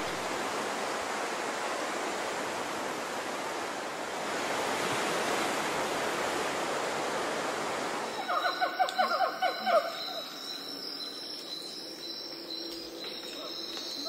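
A steady wash of surf and wind on an open beach. About eight seconds in it gives way to birds calling: a quick run of chattering calls, loudest at first, over thin, high, steady tones, with more calls near the end.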